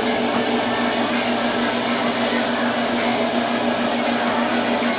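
Steady whirring of an electric motor with a constant low hum.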